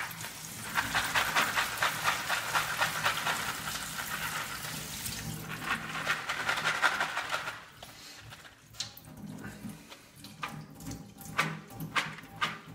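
Tap water running onto soaked beans in a plastic colander as they are given a last rinse, for about seven seconds, then cut off. Afterwards the wet beans click and shift in the colander as it is drained and handled.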